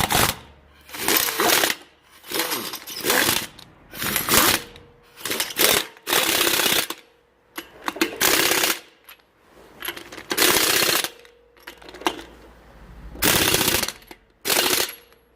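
Pneumatic impact wrench hammering in about ten short bursts, under a second each, as wheel lug nuts are run on and tightened. It is running on a compressor that is low on air.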